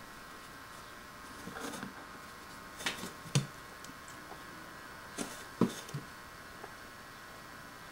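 A Siamese kitten batting a yarn toy around inside a play box: a few short knocks and scuffs in small clusters every couple of seconds.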